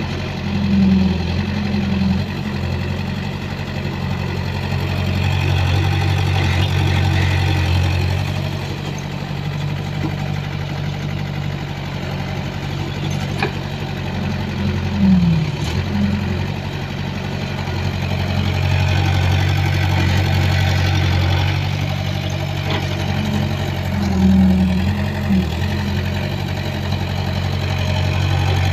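Excavator's diesel engine running steadily, with its pitch dipping briefly about three times.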